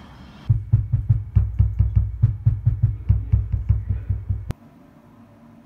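Extracorporeal shockwave therapy applicator pulsing: a rapid, even train of dull knocks, about five a second, starting about half a second in and stopping abruptly after some four seconds.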